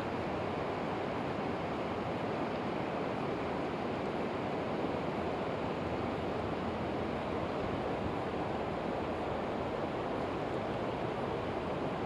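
Steady rushing of a flowing river, an even wash of water noise with no breaks.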